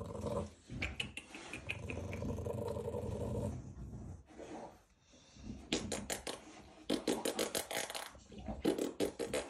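American Bully puppies, two months old, growling and grunting low, with a lull about four seconds in. In the second half the growling comes back among a run of scratchy, rustling clicks.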